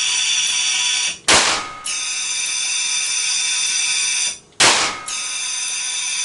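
Propane-oxygen gas gun firing two loud blasts about three seconds apart. Between the blasts there is a steady high-pitched whine, which cuts out just before each shot. It is firing far slower than its 0.6-second cycle, which the builder puts down to pressures not adjusted right and too much gas.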